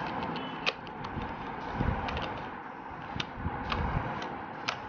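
Scattered light clicks and taps from a 3D-printed wheel-nut wrench and the loosened nut being handled, over a steady background hiss.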